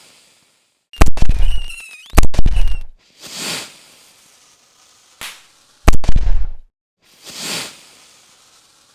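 Aerial fireworks bursting: loud booms about a second in, just after two seconds and near six seconds, with a small pop just before the last. Each boom is followed by a fainter crackling hiss.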